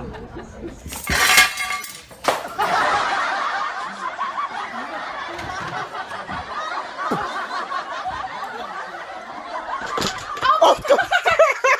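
People laughing, with a loud, sudden noise about a second in and another just after two seconds.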